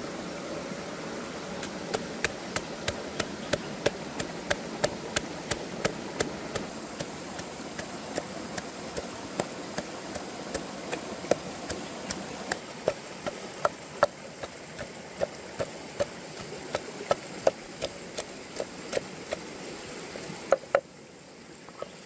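Pestle pounding red chilies, garlic and salt into a paste in a wooden mortar: a long, even run of knocks, about two a second.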